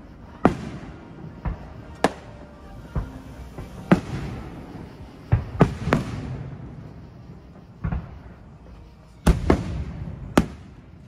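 Aerial fireworks shells bursting overhead: about ten sharp booms at irregular intervals, some coming in quick pairs, each followed by a short echo.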